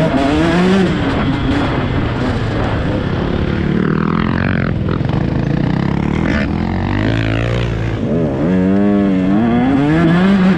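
Dirt bike engine heard from the rider's own bike, revving up and down through the throttle as it is ridden along a rough dirt trail, then climbing in pitch again in the last couple of seconds as it accelerates.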